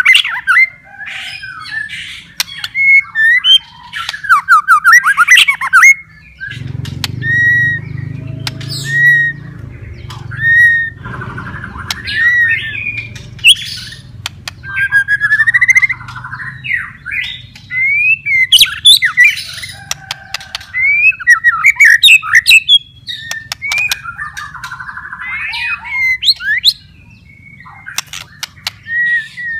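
White-rumped shama in full song: a loud, varied run of clear whistled phrases, rising and falling notes and quick clicking chatter, in short bursts with brief pauses.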